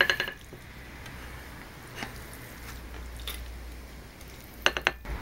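Wooden spatula knocking and scraping on a metal baking tin and a china plate as crushed potatoes are dished up: a quick clatter of clicks at the start, a few faint taps, then another clatter near the end.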